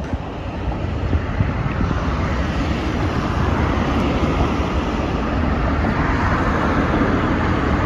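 Road traffic passing close by on the bridge: a steady rush of car tyres and engines that builds gradually, with low wind rumble on the microphone.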